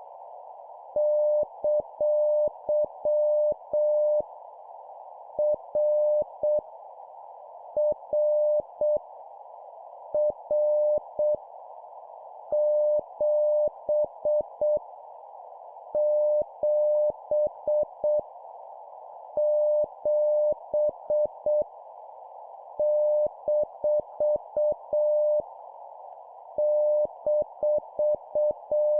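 Morse code (CW) practice at 7 words per minute: a single steady beep keyed on and off into dots and dashes, sending random letters, numbers and punctuation. A constant soft hiss runs underneath.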